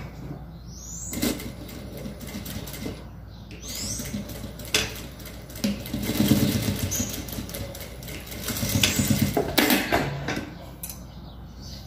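Industrial straight-stitch sewing machine stitching soft fabric in short runs, the longest about halfway through and again about three-quarters through, with clicks and fabric handling between them.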